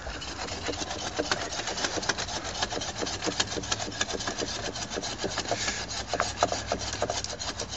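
Hand saw cutting into a tree trunk near its base: a steady, fast run of rasping back-and-forth strokes through the wood.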